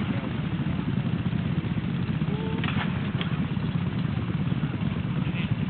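A steady, low engine rumble running at idle, with a couple of faint clicks about midway.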